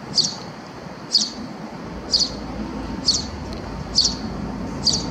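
A small bird's short, high, falling chirp, repeated about once a second over a steady hiss.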